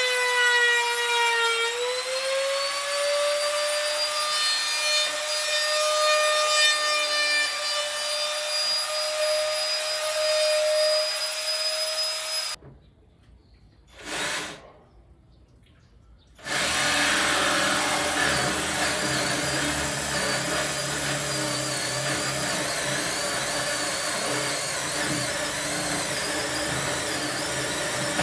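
Cordless drill running at high speed, boring into a 3/4-inch marine plywood cabinet door. Its whine dips under load about a second in, then holds steady for about twelve seconds. It stops for a few seconds, then runs again for about twelve seconds.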